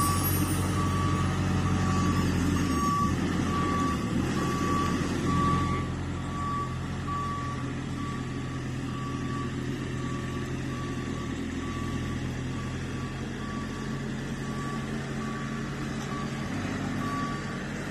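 Backup alarm on a heavy lift machine beeping at a steady, even rate while its diesel engine runs underneath: the machine is reversing.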